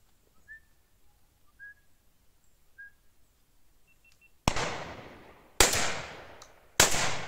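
Three shotgun shots about a second apart, each with a fading tail. Before them come three faint, short bird chirps.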